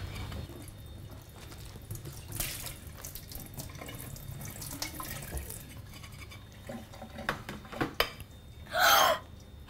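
Water running from a kitchen tap into a sink as dishes are washed, with light clicks and clinks of dishes. A brief, louder sound comes near the end.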